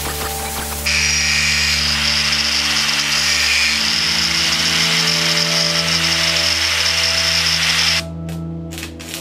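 Electric angle grinder running with a high steady whine, starting suddenly about a second in and cutting off abruptly near the end, over background music.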